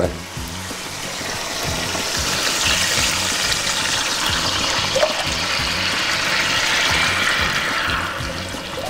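Vegetable broth ladled into a hot pan around a browned veal roast, the liquid hissing and bubbling steadily as it hits the pan, swelling over the first couple of seconds and fading near the end.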